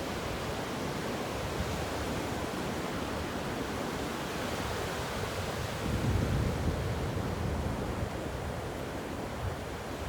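Ocean waves breaking and washing onto a beach: a steady surf hiss that swells with a louder wave about six seconds in.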